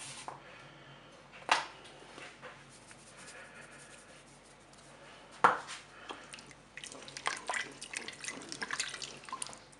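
Wooden spoon stirring a brothy mix of chicken, rice and peas in a Cookeo multicooker bowl, with liquid sloshing and the spoon clicking against the bowl. The stirring is busiest in the last few seconds, after two single knocks earlier on.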